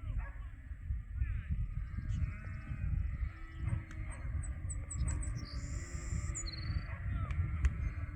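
A flock of ewe lambs runs past, with many hooves trampling and scattered bleating. A bird chirps in a quick rising series about halfway through.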